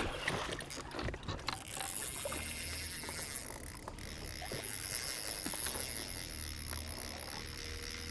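Spinning reel working under the load of a large smallmouth bass being played beside the boat, with light mechanical clicks early on. A low steady hum runs underneath from about two seconds in.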